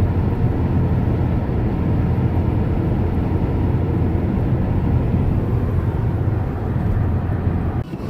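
Steady low rumble of a car driving along a snowy highway, heard from inside the cabin: engine and tyre noise. It dips briefly just before the end.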